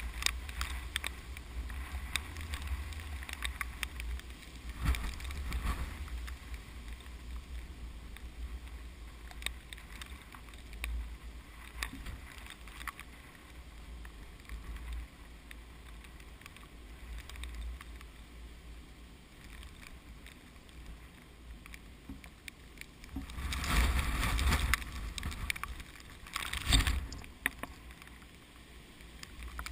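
Strong typhoon wind buffeting the microphone: a steady low rumble with gusts, two stronger gusts near the end.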